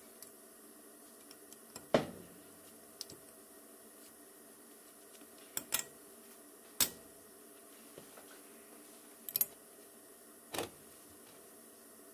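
New brake pad shims being pressed and snapped onto a 2013 Honda Odyssey's front caliper bracket: several short, sharp metal clicks and taps, spread out, the loudest about two seconds and seven seconds in.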